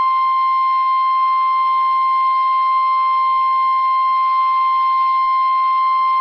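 Emergency Alert System attention tone on a NOAA Weather Radio broadcast: a single steady, unbroken high tone, the warning alarm that announces a National Weather Service severe thunderstorm warning.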